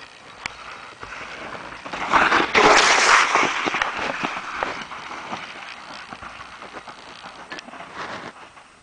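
Downhill mountain bike passing close by on a snow-covered trail: tyres crunching through snow with clicks and rattles from the bike. The sound builds to its loudest about two to three seconds in, then fades as the bike rides away.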